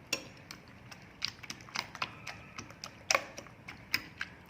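A kitchen utensil clinking irregularly against a bowl while the egg mixture is stirred. The sharp clicks come about twice a second, and a few ring briefly.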